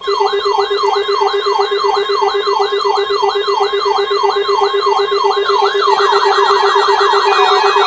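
Several electronic alert alarms set off together by a weather radio's weekly test: a steady pulsing low tone under a rising sweep that repeats about three times a second. A second, faster sweep joins about five and a half seconds in, and another beeping tone comes in near the end.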